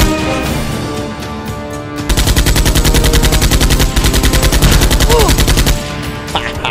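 Rapid automatic machine-gun fire sound effect: one long burst of fast, evenly spaced shots starting about two seconds in and stopping near six seconds, over background music.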